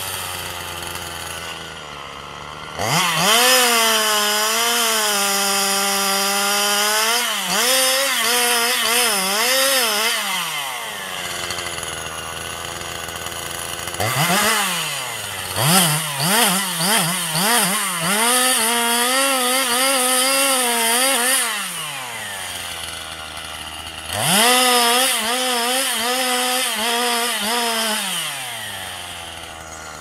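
Two-stroke chainsaw revving to full throttle three times, its pitch wavering and dipping as it cuts into the base of a large conifer trunk, and dropping back to idle between the bursts.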